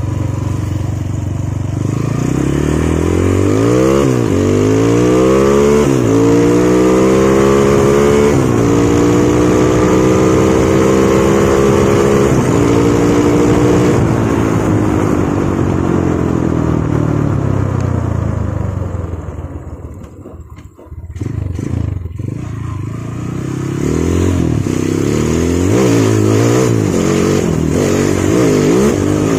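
Single-cylinder four-stroke Honda motorcycle engine running on a Honda Tiger carburetor. It accelerates up through three gears, its pitch climbing and then dropping back at each shift, holds a steady cruise, and then slows with a falling pitch. After a brief drop in level near two-thirds through, it revs unevenly up and down again, with wind noise on the helmet-mounted phone's microphone.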